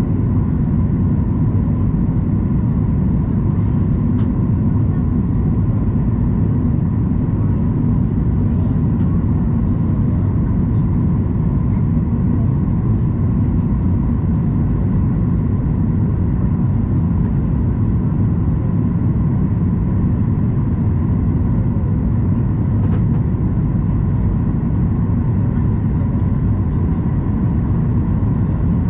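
Steady cabin noise of a Boeing 737 MAX 8 descending on approach: a loud, even low rumble of airflow and its CFM LEAP-1B turbofan engines, with a faint steady whine above it.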